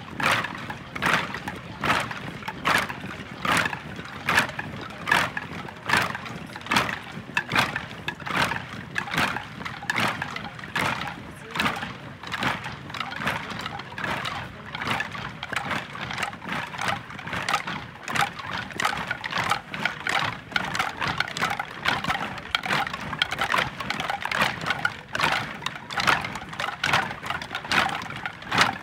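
A large group of people beating out a steady rhythm in unison, about two sharp beats a second.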